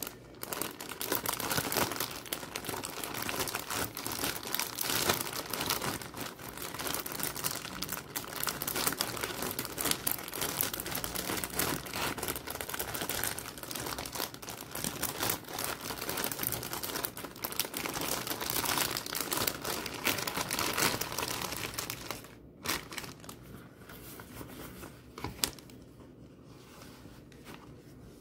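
Plastic packaging of a pair of rubber cleaning gloves crinkled and crumpled in the hands, continuously and loudly. About 22 seconds in it stops, and softer handling noises with one sharp tick follow.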